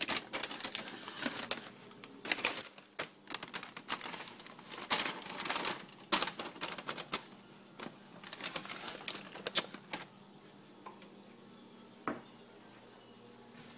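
Plastic cereal bag crinkling and rustling as it is grabbed and handled, in irregular bursts of crackle for about the first ten seconds. After that it goes mostly still, with one sharp click about twelve seconds in.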